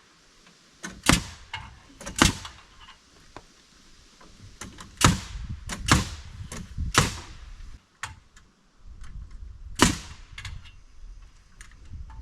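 Hammer driving nails into rough-sawn wooden siding boards: a series of sharp blows, irregularly spaced, the hardest ones coming about a second in, around two, five, six and seven seconds in, and near ten seconds.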